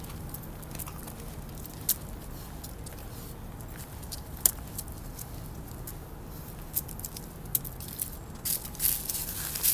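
Dry fallen leaves crackling and rustling as a pug sniffs and steps into them. Scattered sharp ticks at first, turning into a busier run of crackles near the end.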